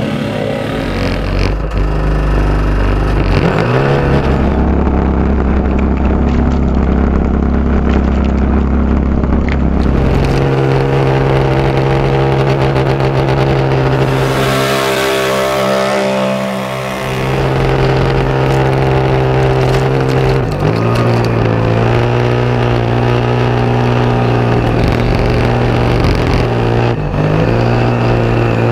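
Side-by-side UTV engine running hard through a mud pit, holding a steady high pitch that steps up and down several times. A rushing hiss of water and mud spray joins it about halfway through.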